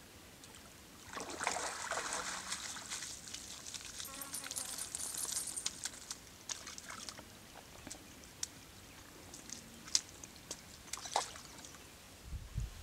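Water splashing and dripping as a dog moves through the water, for a few seconds, then a few scattered sharp clicks.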